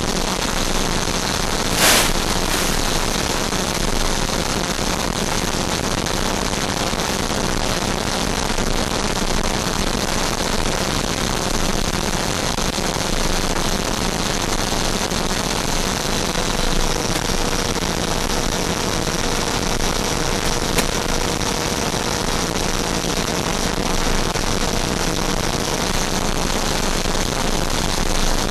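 Steady rushing hiss of airflow and electric ducted-fan noise picked up by the onboard camera of a Freewing F-5 RC jet in flight, with a faint steady whine that steps slightly lower about two-thirds of the way through. A single sharp click comes about two seconds in.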